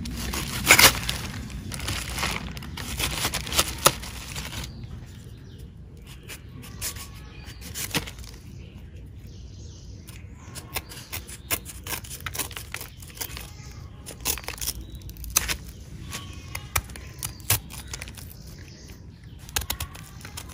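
Knife cutting and trimming a tender jackfruit: irregular sharp clicks and knocks, with rustling handling of the fruit in the first few seconds.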